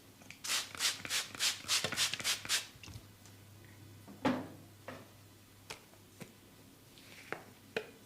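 Massage hand sounds: about eight quick, rhythmic rubbing strokes over two seconds, then a single thump about four seconds in and a few soft clicks.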